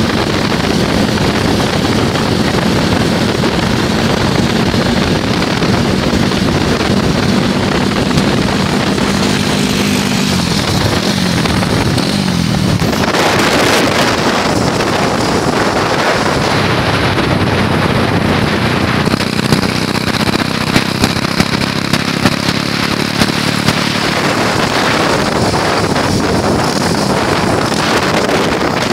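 A small engine running steadily, its pitch shifting for a few seconds near the middle, with wind buffeting the microphone. A few sharp knocks come about two-thirds of the way in.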